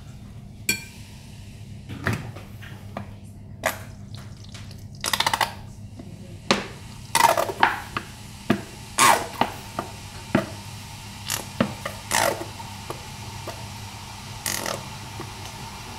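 A metal spoon and a plastic cup scraping and knocking against a ceramic bowl of shredded cabbage while mayonnaise is added: scattered clinks and short scrapes, some sliding down in pitch, with a quick rattle about five seconds in.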